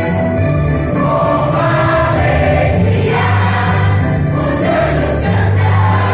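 Church choir singing a Christmas cantata piece with instrumental accompaniment and a steady bass line.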